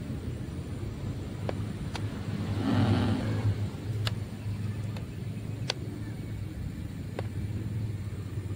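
Steady low motor hum, with a few sharp clicks and a brief rushing noise about three seconds in.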